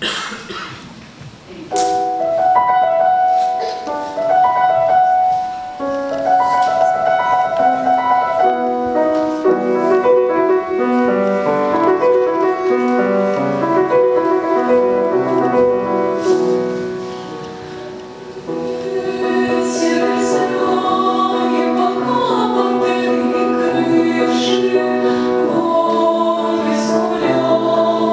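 A girls' vocal ensemble singing in harmony with piano accompaniment. The voices come in about two seconds in; the music softens briefly about two-thirds of the way through, then swells again.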